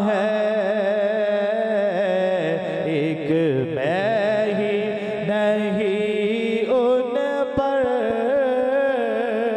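A man sings a naat into a microphone in long, drawn-out phrases with wavering held notes, over a steady low drone.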